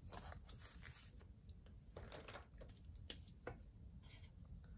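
Faint, scattered rustles and soft taps of paper banknotes being handled and laid down, with a pen marking a paper card near the end.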